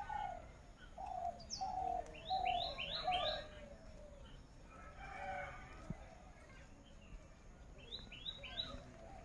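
Several birds calling outdoors. A series of repeated lower call notes runs through the first three seconds. Short sets of three or four quick, rising high chirps come about two seconds in and again near the end.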